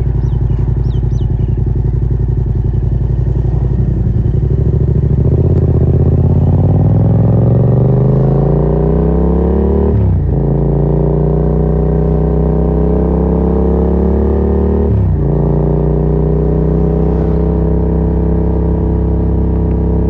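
Yamaha MT-07's 689 cc parallel-twin engine through a Yoshimura R77 exhaust with no dB killer, pulling with rising revs while the bike accelerates. It upshifts about ten seconds in and again about fifteen seconds in, the note dropping at each shift before climbing again.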